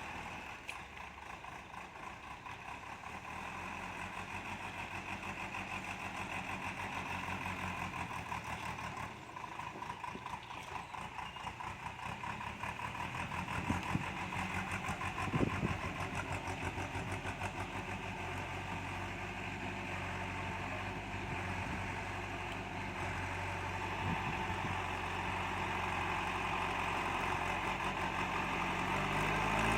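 Diesel engine of heavy earthmoving machinery running steadily, growing gradually louder, with two short clanks about halfway through.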